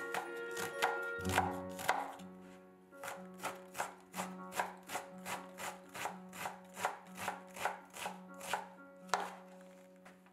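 Santoku knife chopping diced onion on a cutting board, a steady run of quick strokes about three to four a second, with slower, looser cuts in the first couple of seconds.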